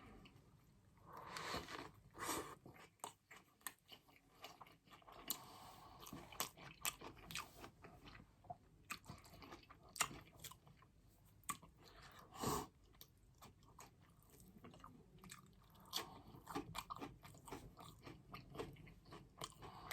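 A person chewing and biting food close to the microphone: wet mouth smacks and crunches as short, irregular clicks, a few of them louder.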